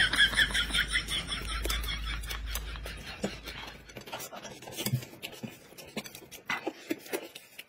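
Light scratching, rubbing and clicking noises of things being handled, fading after about three seconds into scattered light clicks.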